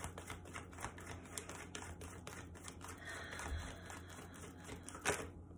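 A deck of reading cards being shuffled by hand: a quick run of soft card clicks, with one sharper snap about five seconds in.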